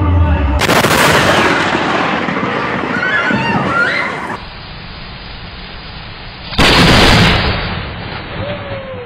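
Two sudden, loud thunderclaps from close lightning strikes, the first about half a second in and the second about six and a half seconds in, each dying away over a couple of seconds. Brief high cries or screams come during the first crash, and a steady hiss fills the gap between them.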